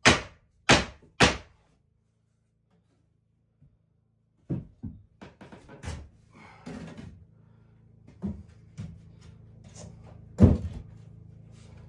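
Three sharp blows about half a second apart as wooden trim is fastened against the pine ceiling boards. After a pause come scattered knocks and clatter of wooden boards being handled, with one loud knock near the end.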